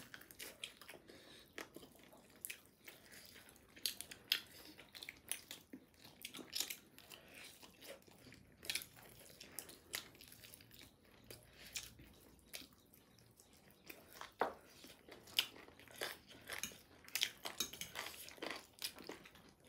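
Faint, irregular chewing and mouth smacks from people eating spicy chicken wings and Buldak noodles.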